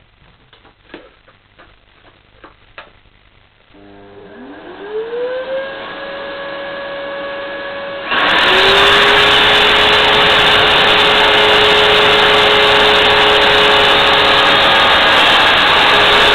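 Handling clicks, then a vacuum cleaner starts about four seconds in and spins up to a steady whine. About eight seconds in a BLACK+DECKER KW1200EKA electric wood router starts, much louder, rising to a high steady whine and running together with the vacuum.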